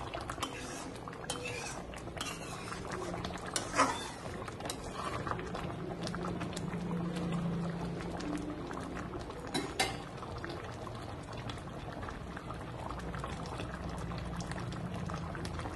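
Fish-head and taro curry bubbling at a simmer in a metal kadai on a gas burner. A spatula clicks sharply against the pan a couple of times, about 4 and 10 seconds in.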